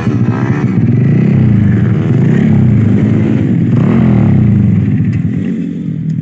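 Motorcycle engine being revved over and over, its pitch climbing and dropping about once a second.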